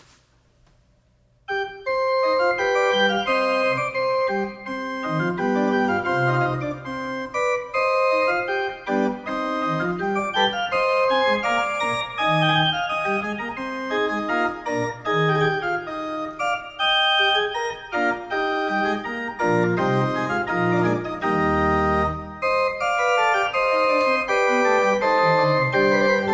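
Small chamber pipe organ playing a piece with many notes moving in several parts at once. It starts about a second and a half in, after a near-silent moment, and breaks off briefly near the end before going on.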